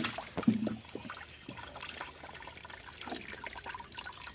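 Water trickling and dripping, with scattered light splashes and small knocks, around freshly washed turmeric rhizomes.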